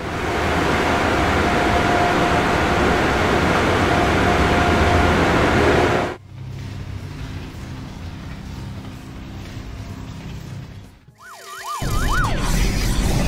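Cartoon car-wash machine sound effects: a loud rushing hiss for about six seconds, then a softer rushing sound. About eleven seconds in a brief warbling tone wavers up and down, and a loud rush starts again as the orange wash curtain comes down.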